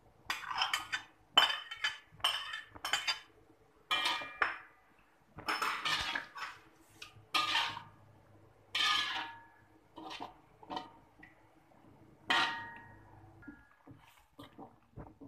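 A metal ladle scraping and clanking against a wok in irregular strokes, some ringing briefly, as sliced bamboo shoots are stirred through a wet coconut gravy.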